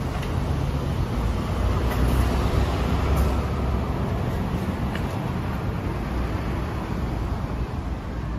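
Kawasaki Ninja 650's parallel-twin engine idling with a steady low rumble.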